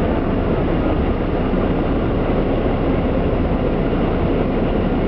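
Seagrave fire pumper's engine running, a steady loud rumble.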